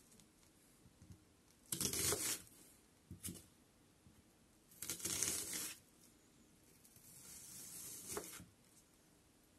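A kitchen knife slicing into a halved onion on a wooden cutting board. There are about four separate cuts, each a brief crisp tearing noise as the blade goes through the onion layers. The last cut is longer and ends with a sharp knock of the blade on the board.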